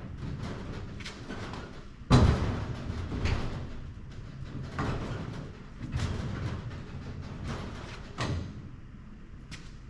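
Heavy steel roller tool cabinet being pushed on its casters over a concrete floor: a low rumble, with a loud bang about two seconds in and several lighter knocks after it.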